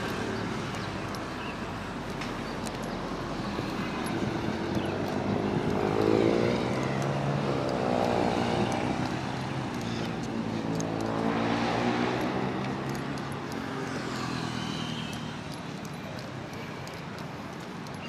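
Road traffic: two motor vehicles drive past one after the other, about six and twelve seconds in. Each engine note swells and bends in pitch as it passes, over a steady background of traffic.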